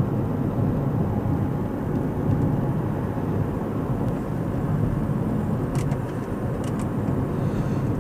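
Cabin noise of a 2007 Mercedes C220 CDI (W204) cruising at about 80 km/h in sixth gear: a steady low hum of its four-cylinder diesel and the tyres on the road.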